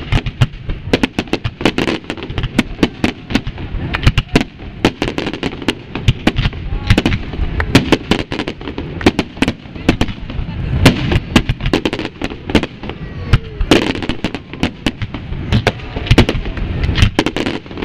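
Fireworks display: a dense, continuous barrage of shell launches and bursts, several sharp bangs a second, over a steady low rumble.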